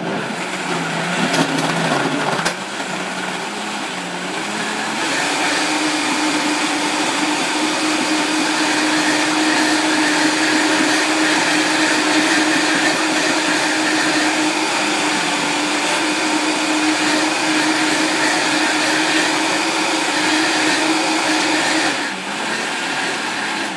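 Blender pureeing a thick smoothie of leafy greens, frozen coconut and fruit while a tamper is pushed down through the lid. The motor climbs in speed over the first few seconds, runs steadily at full speed, then winds down near the end.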